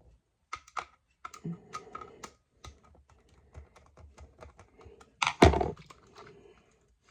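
Light plastic clicks and taps from a plastic TrackMaster toy engine being handled and worked on, with one louder knock about five and a half seconds in.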